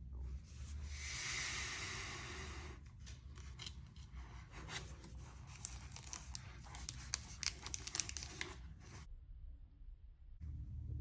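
Packaging being ripped open in one long tear of about three seconds, then crinkled and handled with many small sharp clicks.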